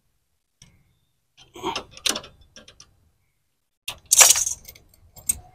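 Metal clinks and jangles of a refrigerant flaring tool being loosened and taken off a copper pipe end, a few scattered clanks with the loudest jangle about four seconds in.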